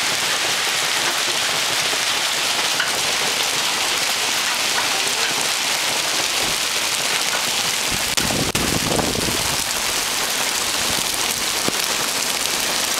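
Hail and heavy rain falling, a steady dense hiss with scattered small ticks. A brief low rumble comes about eight seconds in.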